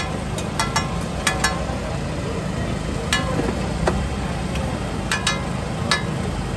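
Metal spatula striking a large steel tawa griddle: about ten sharp, ringing clinks in small clusters over a steady low rumble of a busy street-food stall.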